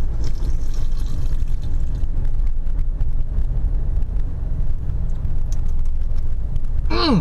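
Road and engine noise inside a moving car's cabin: a steady low rumble. Near the end, a short falling vocal sound from the driver.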